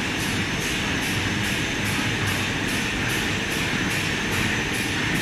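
Sinomech A400 solventless laminating machine running, a steady loud whir and rumble with a faint regular pulse about three times a second.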